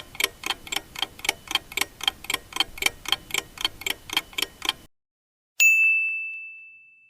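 Countdown-timer sound effect: a clock ticking at about four ticks a second, which stops, then a single ding that fades away, marking that the answer time is up.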